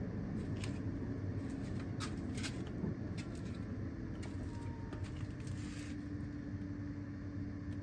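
Steady low hum with a few light clicks and rustles scattered through it; a faint steady tone joins about five seconds in.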